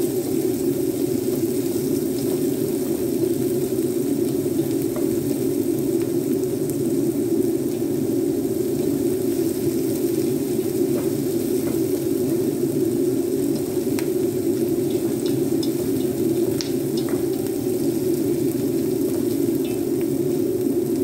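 Chopped onion, garlic and ginger sizzling in olive oil in a wok as a wooden spatula stirs them, over a steady low rush, with a few light spatula taps in the second half.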